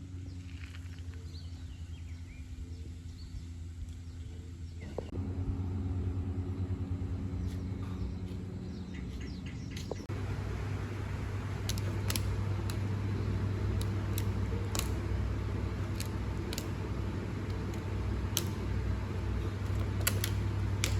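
Steady low hum of a car engine with road noise, as heard from inside a moving car, stepping louder about five and ten seconds in. Scattered short high clicks or chirps sound over it in the second half.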